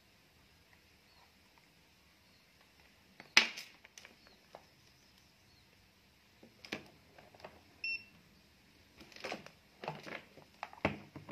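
Scattered clicks and knocks as a TV chassis circuit board is handled and shifted, the sharpest click about three seconds in and a cluster more in the second half. One short electronic beep sounds a little past halfway.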